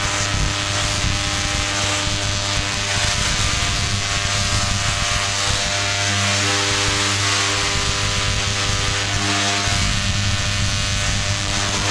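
Large Tesla coil discharging: a loud, steady electric buzz with a harsh crackle as violet sparks arc from the coil's top into the air.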